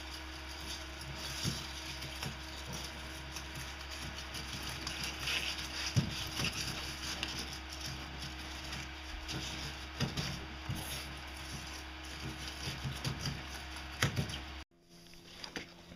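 Crumbled styrofoam being pressed by hand into a hole in a fiberglass pontoon, giving small irregular crackles and clicks over a steady low hum.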